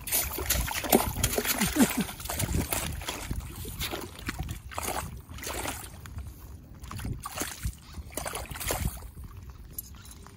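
Northern pike thrashing in an ice-fishing hole, splashing and sloshing the water in irregular bursts, busiest in the first few seconds and tapering off.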